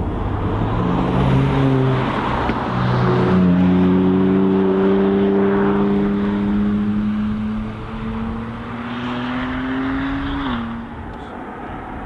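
Sports car engine accelerating hard through the gears, its note climbing and then stepping down at each upshift, twice, before it backs off near the end.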